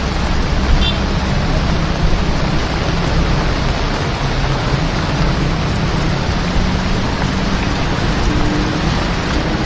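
Heavy rain with a vehicle running through it: a steady rush of rain and road noise over a low engine rumble.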